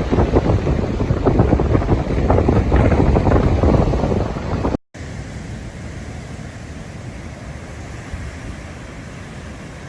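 Strong storm wind buffeting the microphone in loud, rapid gusts, cut off abruptly about five seconds in; then a quieter, steady rush of wind.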